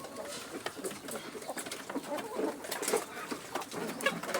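A flock of young chickens clucking in short low calls, with scattered sharp clicks and taps among them.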